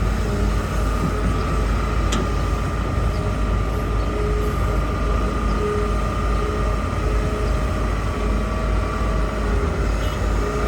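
Hitachi excavator's diesel engine running steadily under a deep rumble, with a constant high whine. A single sharp click about two seconds in.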